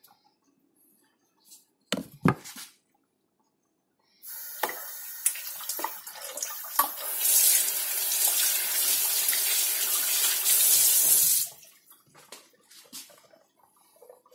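A water tap running into a sink for about seven seconds, with scattered clinks at the start, then shut off abruptly. Two sharp knocks come a few seconds before the water starts.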